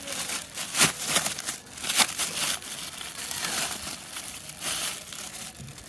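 Packaging crinkling and rustling in irregular bursts, with a few sharper crackles, as a new mask is unwrapped from its packaging.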